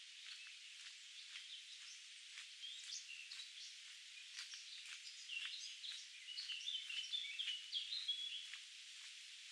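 Songbirds chirping and singing, many short calls that grow busiest in the second half, over a steady hiss with scattered soft ticks.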